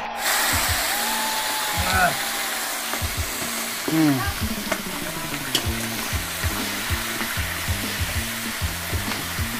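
Meat sizzling as it fries in a large wok and is stirred with a metal ladle, with a music track's steady bass beat underneath.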